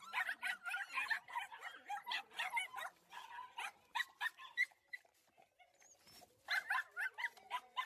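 Dog eating dry kibble from a stainless steel bowl, a rapid run of crunching and chomping that thins out for a moment past the middle and then picks up again.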